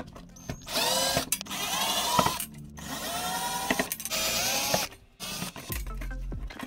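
Cordless drill with a driver bit backing screws out of an aluminium ECU case, in two runs of about two seconds each, the motor's whine rising in pitch as it spins up.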